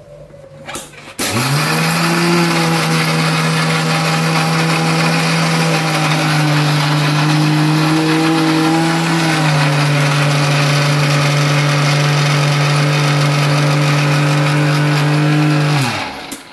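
Electric mixer grinder with a steel jar, switched on with a click about a second in and running steadily at high speed as it grinds Oreo biscuits into a fine powder; its pitch drops slightly about halfway, and the motor winds down when it is switched off near the end.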